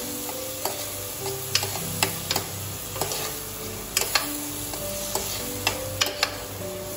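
A metal spoon stirring and scraping chana dal in sizzling spiced oil in a pressure cooker pot, the dal being sautéed with the masala. The spoon clinks sharply against the pot at irregular intervals, about two times a second.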